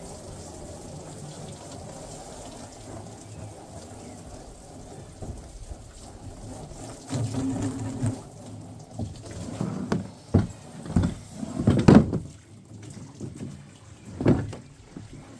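Running water filling a container, steady for the first several seconds, then a few sharp knocks, the loudest about twelve seconds in.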